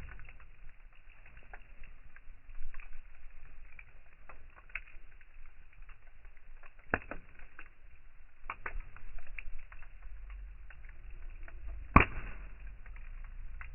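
Wood campfire burning, crackling with irregular small snaps and two louder pops, the sharpest about twelve seconds in, over a low steady rumble.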